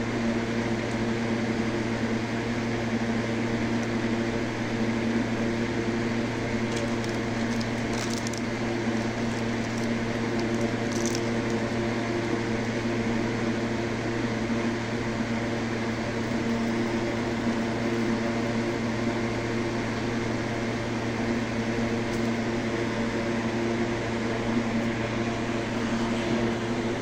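Steady machine hum, several even tones held over a hiss. Two short clicks about 8 and 11 seconds in.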